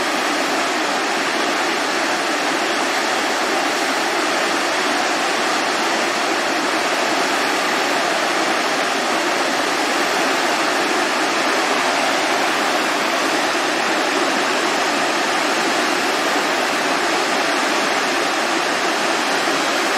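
Floodwater pouring over a low concrete dam and churning in whitewater below it: a steady rushing of water, the river swollen in flood.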